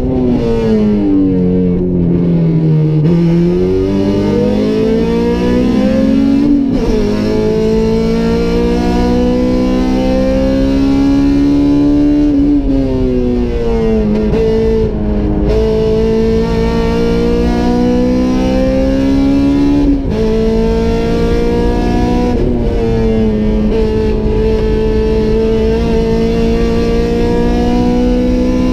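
Honda Civic Type R FD2R's standard K20A four-cylinder engine heard from inside the cabin at hard track driving: its pitch falls as the car slows for the first few seconds, then climbs and drops back at each gear change several times. Music with guitar plays over it.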